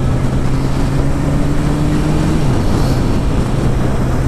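Kawasaki ZX1000's inline-four engine running steadily at road speed under a thick rush of wind noise. The engine note drops a little about two and a half seconds in.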